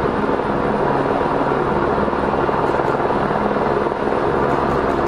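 Helicopter hovering, a steady rotor and engine noise.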